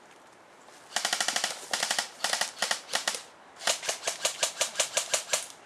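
Airsoft gun firing full-auto bursts: rapid, even clicking shots with a faint mechanical whine behind them. The first run of bursts starts about a second in, and a second run follows after a short pause.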